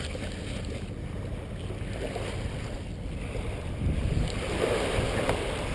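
Wind rumbling on the microphone over small waves washing onto the beach.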